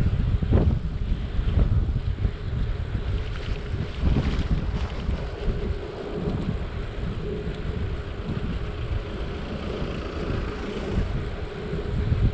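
Wind buffeting the microphone of a moving bicycle, a heavy gusting rumble with a steady faint hum underneath.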